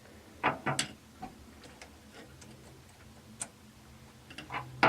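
Small hard parts of a faucet's ceramic cartridge clicking and tapping against each other as they are handled, a few separate sharp clicks spread out with gaps between.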